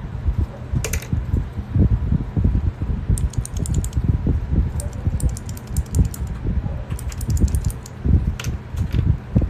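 AKKO Cherry MX-style mechanical keyboard switches being typed on: quick runs of sharp clicks over duller thuds.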